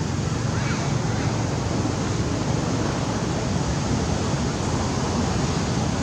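Steady rushing noise with a heavy, fluttering low rumble: wind buffeting the microphone outdoors.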